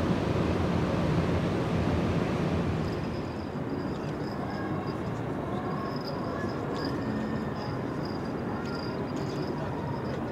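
Harbour ambience: a steady low rumble that drops quieter at a cut about 3 s in, after which a faint high whine and a few faint clicks come through.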